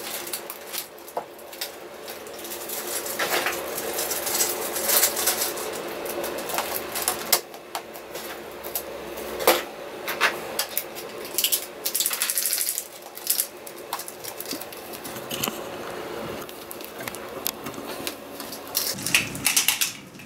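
Irregular clicks, clatter and rustling of small plastic toys and packaging being handled and sorted.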